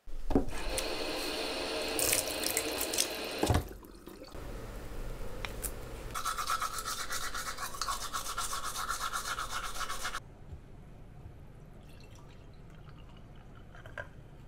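Running water with splashing, in three short stretches that change abruptly about three and a half seconds in and again about ten seconds in; the last stretch is fainter.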